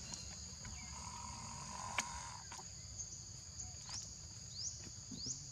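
Steady high-pitched insect chorus, two continuous shrill bands, with short rising chirps now and then and a single sharp click about two seconds in.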